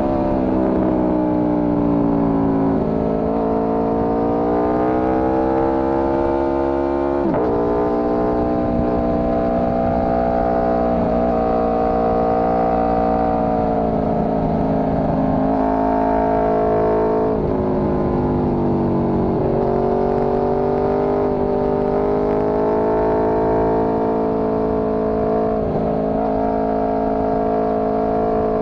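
Four-cylinder motorcycle engine running under way, its revs rising and falling repeatedly as the throttle is rolled on and off, with a sudden change in engine pitch about seven seconds in. Wind rumble runs underneath.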